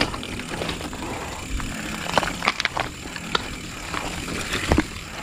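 Mountain bike rolling over a loose, stony trail: tyres crunching over rocks, with many scattered sharp clicks and rattles from the bike.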